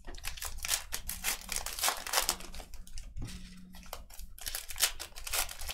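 Trading-card pack wrappers crinkling and tearing as packs are ripped open and handled: a dense, steady run of crackles.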